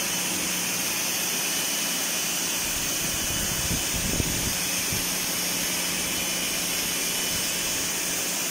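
Pressure-washer jet hissing steadily against a metal-mesh air handling unit filter, with a steady low hum underneath. A few brief low knocks come about four seconds in.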